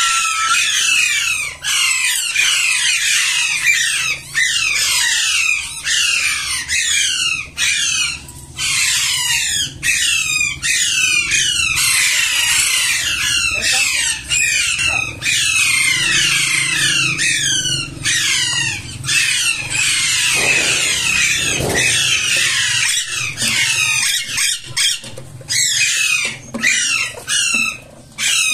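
Many small birds chirping and squawking at once: a dense, continuous chatter of short falling calls.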